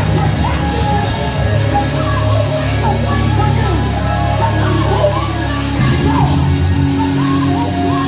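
Loud band music with a steady bass line and melodic lines above it that bend up and down.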